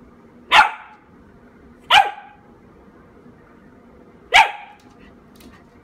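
Corgi puppy barking three times, short sharp barks spaced a second or two apart, at an apple on the floor.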